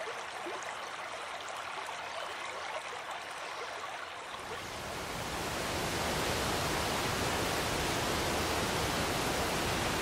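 River water flowing over stones and gravel: a light ripple at first, then from about halfway a louder, steady rush of water.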